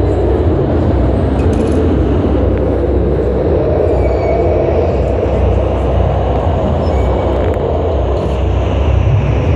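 Deep, steady rumbling ambient soundscape of an underwater light-projection show, a dense low drone that slowly swells and ebbs, filling a large domed hall.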